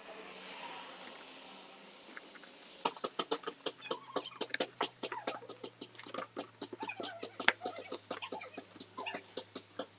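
Hobby knife cutting thin strips of masking tape on a newspaper-covered bench: a dense, irregular run of short scratchy clicks, several a second, starting about three seconds in.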